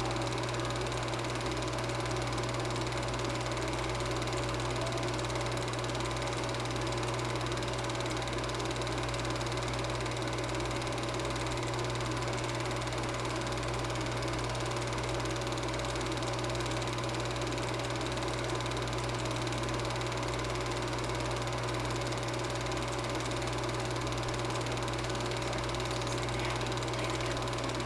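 Super 8 film projector running: a steady motor hum and whir of the film transport, even and unchanging throughout.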